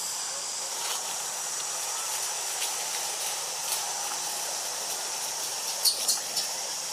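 Steady high-pitched drone of insects, with a few sharp clicks near the end.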